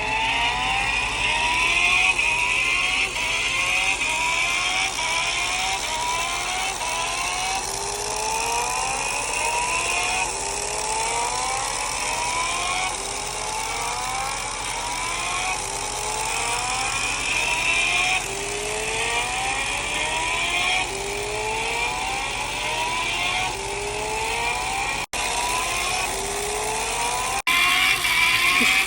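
Electronic engine sound effect from a 1/6-scale Kawasaki H2R model motorcycle's built-in speaker: a simulated superbike engine revving up over and over, its pitch climbing and then dropping back a little more than once a second, like repeated gear changes under hard acceleration. The sound cuts out very briefly twice near the end.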